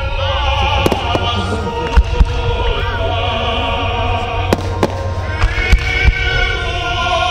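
Fireworks display: aerial shells bursting with several sharp bangs over loud music played for the show, with a steady low rumble beneath.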